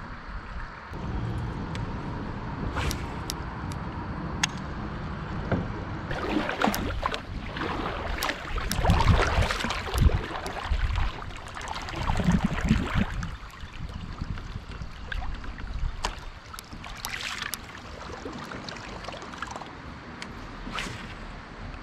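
Water splashing and sloshing around a kayak being moved through a shallow river, with a few sharp knocks and a steady low rumble; the splashing grows louder about eight to ten seconds in and again around twelve seconds.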